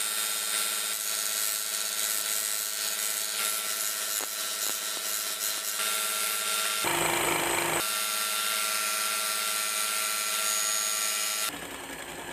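Bench belt sander of a Kentaro 6-inch grinder-sander running, with a small wooden block pressed against the sanding belt: a steady motor hum under a loud sanding hiss. The sound changes briefly about seven seconds in and drops off abruptly near the end.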